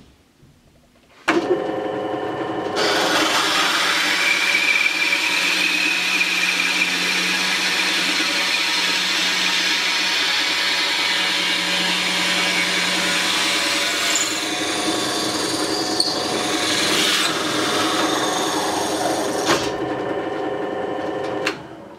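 Drill press switched on about a second in, its motor running with a steady hum while a tenon plug cutter bores into a wooden board, adding a dense rasping cutting noise. The cutting noise stops shortly before the end, and the press winds down and stops near the end.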